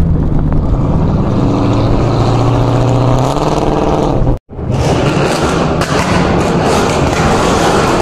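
Car engines running on the move: a steady low engine hum that rises a little in pitch, then breaks off sharply about four and a half seconds in, followed by a rougher, noisier mix of engine and road sound.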